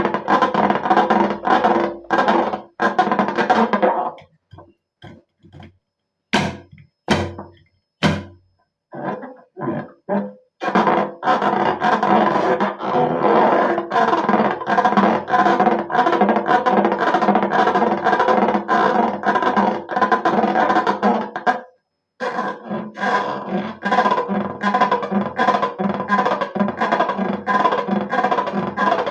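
Background music with a steady beat. It drops out for several seconds near the start, leaving a few sharp clicks, and stops briefly once more later on.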